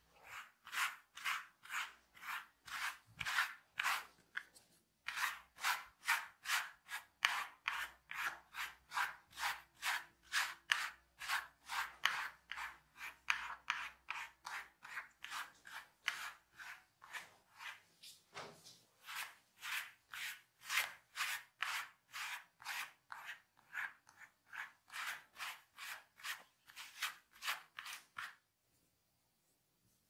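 Hair and scalp being scratched and rubbed by hand in quick, even strokes, about two or three a second, with a short break about five seconds in. The strokes stop a little before the end.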